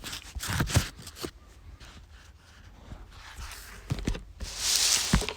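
A few light clicks and taps, with a short soft hiss about four and a half seconds in.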